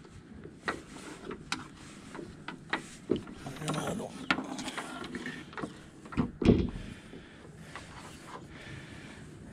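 Scattered clicks and knocks of solar-panel cable connectors and leads being handled and fitted, with the panels' metal frames shifted on wooden deck boards. One louder thump comes a little past six seconds in.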